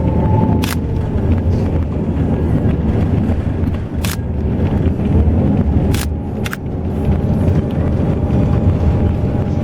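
Steady low rumble of an intercity bus's engine and road noise heard from inside while it drives, with four sharp clicks or rattles through it.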